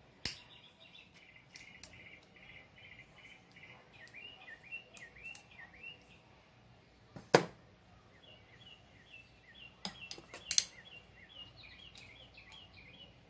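A few sharp metallic clicks and snaps as a circlip is worked into its groove on a motorcycle transmission countershaft with circlip pliers, the loudest about seven seconds in. Between them a small bird chirps in quick repeated series in the background.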